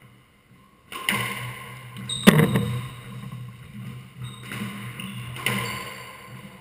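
Squash ball struck by rackets and hitting the court walls, each hit ringing on in the echoing court; the sharpest, loudest crack comes a little over two seconds in, with another hit about five and a half seconds in.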